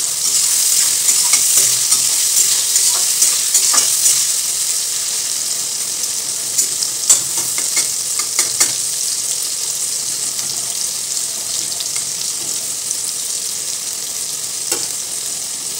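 Eggplant and bitter gourd slices frying in hot oil in a metal kadai: a steady sizzle. A spatula stirs them, clicking and scraping against the pan, mostly in the first half.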